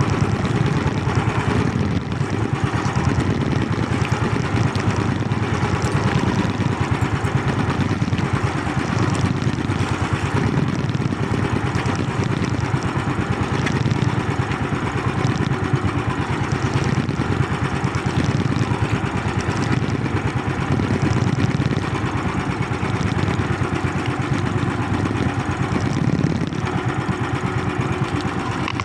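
Small boat engine running steadily at an even speed, with a fast, constant chugging.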